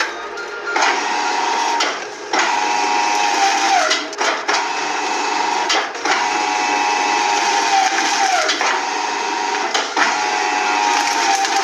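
Shredding machine running, with a steady motor whine that drops in pitch several times and sharp cracks at irregular intervals.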